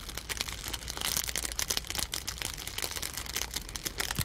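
Outer wrapper of a cigarette pack being crinkled and poked by hand in a dense, unbroken crackle of small clicks: a foley stand-in for a small fire or burning coals.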